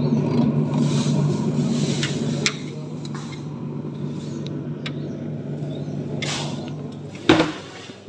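A steady low hum with a few small clicks, then a single loud thump about seven seconds in as the door of the LG two-door refrigerator is shut; the hum drops away right after.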